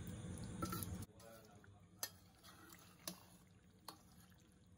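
Metal ladle stirring egg macaroni in a steel pressure cooker: soft stirring with three sharp taps of the ladle against the pot, about one a second in the second half. A faint steady hum in the first second cuts off.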